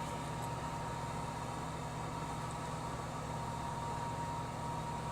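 Steady low mechanical hum with a constant thin high tone over it, unchanging throughout.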